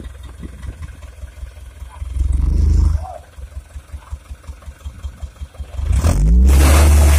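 Hino Dutro dump truck's diesel engine idling with a regular chugging pulse, revving briefly about two seconds in, then revving up loud near the end as the hydraulic hoist starts to tip the loaded bed.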